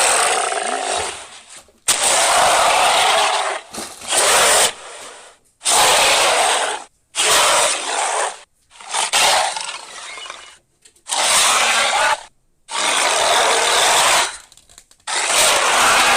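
Custom-made Asian dragon roar sound effects: a run of about nine rough, noisy roars and growls, each lasting one to two seconds with short breaks between them.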